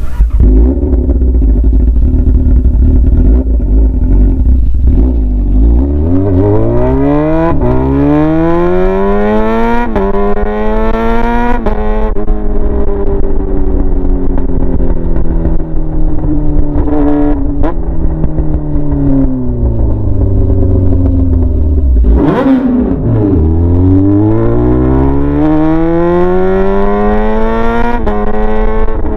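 Yamaha R6's inline-four engine running through a straight pipe with no muffler, loud and raw. It is low and steady for the first few seconds, then the pitch climbs through several quick gear changes, falls slowly for about ten seconds as the bike slows, and climbs through the gears again near the end.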